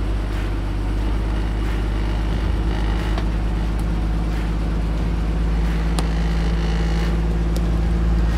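Off-road vehicle's engine running at low, steady revs, with a few sharp clicks.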